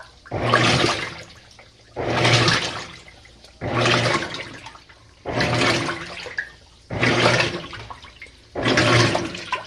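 Washing machine in its main wash on the delicate cycle, the drum swishing the water in regular surges about every second and a half, each starting suddenly over a low motor hum and then dying away.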